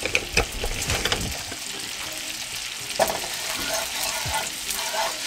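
Garlic cloves sizzling in hot oil in a nonstick frying pan, with a wooden spoon stirring them and knocking and scraping against the pan. The knocks come several times in the first second or so and again about three seconds in.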